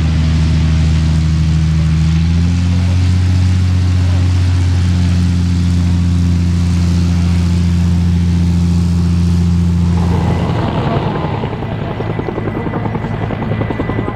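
Zivko Edge 540's Lycoming six-cylinder engine and propeller running with a steady drone as the aerobatic plane taxis, the pitch stepping up slightly about two and a half seconds in. About ten seconds in the steady note gives way to a rougher, less even sound.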